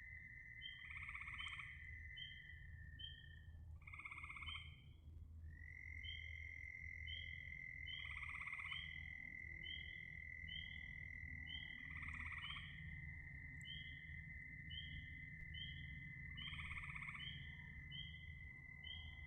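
Frog chorus: a louder croaking call comes about every four seconds, over a steady high trill and a short chirp repeating a little more than once a second.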